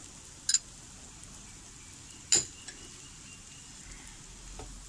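Two sharp metallic clinks of a utensil, the second louder, about two seconds apart, over the faint steady sizzle of chopped onion and tomato frying in a pan.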